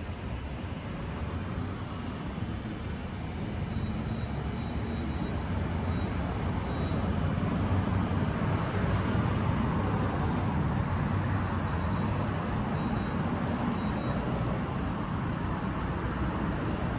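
Steady rumble and hiss of a hydrogen fueling dispenser and station equipment while a fill is under way, growing a little louder a few seconds in and then holding steady.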